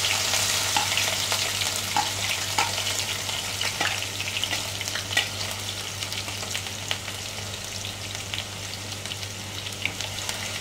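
Chopped green chillies and garlic sizzling in hot oil in a kadai, with scattered crackling pops. The sizzle is loudest at the start and slowly settles.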